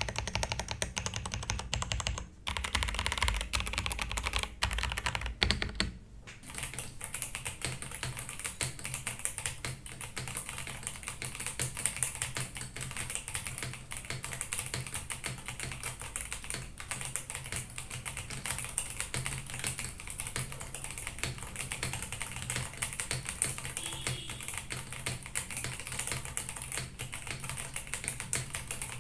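Attack Shark K86 mechanical keyboard with Blue Whale switches being typed on in a rapid, continuous run of keystrokes. The typing is heavier for the first six seconds or so, then lighter and steady.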